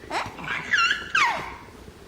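A young child's high-pitched delighted squeals: a quick falling squeal at the start, then a held high squeal about a second in that slides steeply down in pitch.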